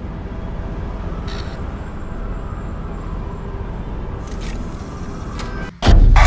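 Cinematic trailer sound design: a steady low rumble with a couple of brief whooshes, then a sudden loud boom near the end.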